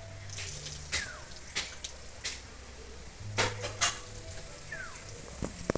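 Soaking water being poured off soaked chana dal in a steel bowl, trickling and splattering, with scattered small clicks and taps of hand and bowl.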